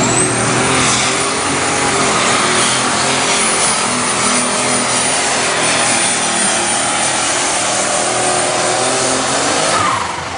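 Unlimited super stock pulling tractor's turbocharged diesel engine at full power pulling a weight-transfer sled, loud and steady, with a high whistle that climbs at the start and then holds. About ten seconds in the engine is let off and the sound drops.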